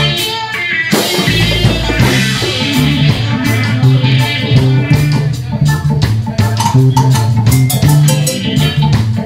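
Live reggae band playing: electric guitar, keyboard, bass guitar and drum kit, with a prominent repeating bass line under a steady drum beat.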